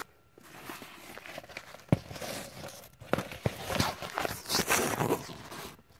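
Rustling and scraping of a fabric purse organizer and its thick plastic stiffening insert being handled and pushed into place, with a sharp tap about two seconds in.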